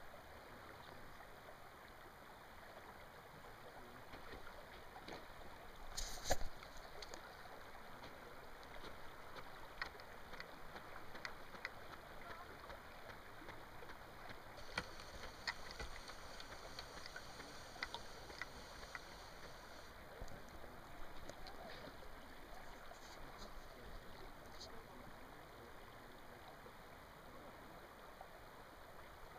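Steady low rush of flowing river water, with scattered small clicks and one brief louder knock about six seconds in. A faint high whine comes in for a few seconds past the middle.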